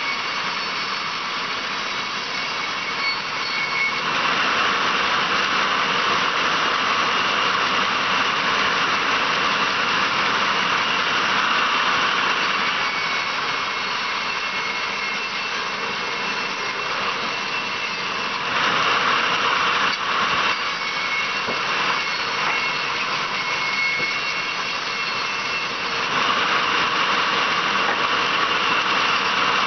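Large wheel band saw running steadily while a log slab is fed through it and sawn lengthwise. The noise swells in several stretches during the cut.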